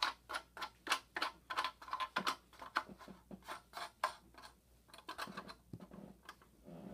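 Irregular run of small clicks and taps, several a second, from handling the plastic smoke detector and its metal mounting bracket.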